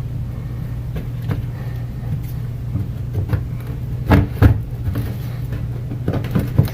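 A steady low hum throughout, with a few short knocks and taps as a cut-out piece of drywall is worked loose from the wall. The strongest knocks come about four seconds in and again near the end.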